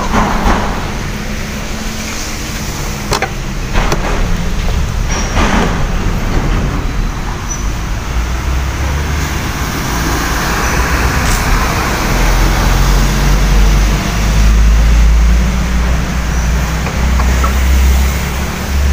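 Road traffic with a heavy truck going by: a low engine rumble that swells in the second half, over a hiss of tyres on the wet road. A few sharp knocks are heard in the first six seconds.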